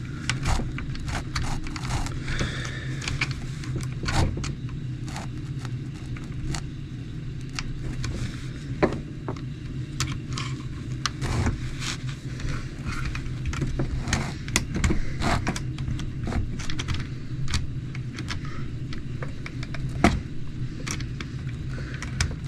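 Small plastic and metal parts of a radio-controlled truck being handled and fitted back together by hand: many irregular clicks, taps and light rattles, over a steady low hum.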